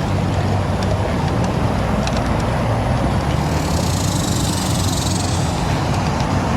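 Wind rumbling on a bicycle-mounted action camera's microphone as a road bike climbs a short rise, with tyre noise and a few faint ticks. A high hiss swells up in the middle and fades again.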